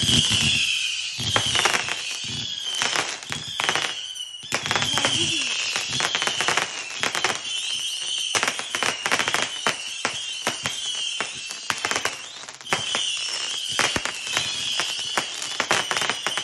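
Firework cake going off: a run of shrill whistles, each wavering around the same high pitch, one after another, over dense crackling and popping.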